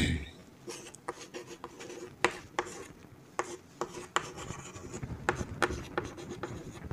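Chalk writing on a chalkboard: a string of quick, irregular taps and scratchy strokes.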